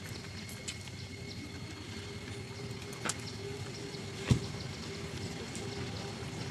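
Steady outdoor background noise with a low rumble and faint steady high tones, broken by a light tap a little after three seconds and a sharper click about a second later.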